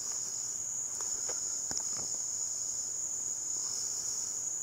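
A steady chorus of crickets: a continuous high-pitched trill that does not let up, with a few faint ticks over it.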